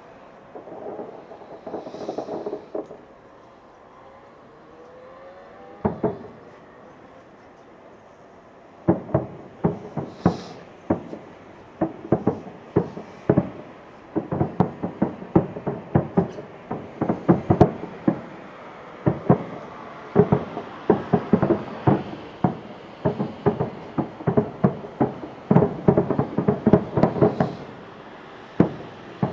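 Fireworks shells bursting. A lone bang comes about six seconds in, after a faint rising whistle. From about nine seconds a rapid barrage of sharp bangs follows, several a second, each with a short echo.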